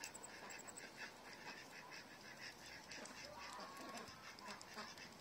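Domestic hen making faint, soft clucking sounds, with a faint rapid ticking behind them at about four or five a second.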